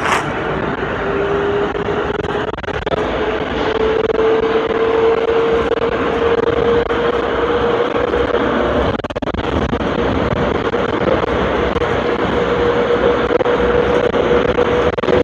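Atlanta airport Plane Train (automated people mover) running through its tunnel, heard from inside the car: a steady rumble of running noise with a motor whine that rises in pitch over the first four seconds, then holds steady.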